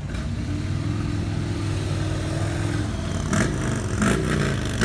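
Motorcycle engines running as a line of touring bikes pulls away, a steady engine note throughout, with a few short clatters about three to four seconds in.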